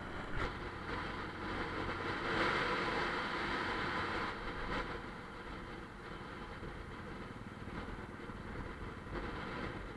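Bajaj Pulsar 150's single-cylinder engine running while the motorcycle is ridden along an open road, under a steady rush of road and air noise. The rush grows louder for a couple of seconds from about two seconds in, then settles.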